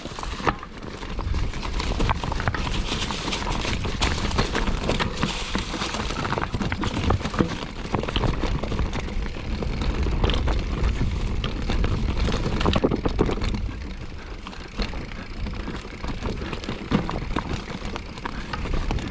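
Mountain bike riding down a rocky trail: the tyres crunching over rocks and the bike rattling in many sharp clicks and knocks, over a steady low rumble.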